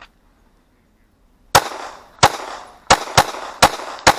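Pistol fired six times in about two and a half seconds, starting about a second and a half in, each shot sharp with a short echo after it: a timed string of fire on an action-shooting stage. The pistol is a PSA Dagger.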